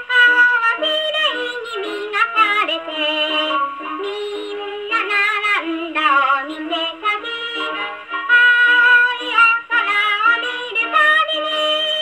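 Victor VV-50 wind-up acoustic gramophone playing a 78 rpm record of a song with band accompaniment. The sound is thin, with almost no bass.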